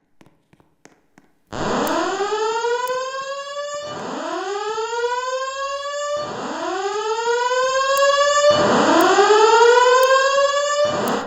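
Voice-evacuation fire alarm speakers sounding a whoop tone: a rising sweep repeated four times, about every two and a half seconds, starting a second and a half in. It alternates with the recorded evacuation message, so it signals an evacuation alarm.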